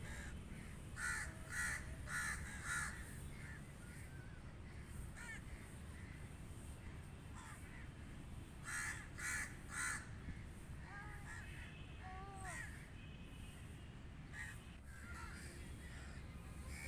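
Crows cawing: a quick run of four loud caws about a second in and three more around the middle, with fainter caws and calls between.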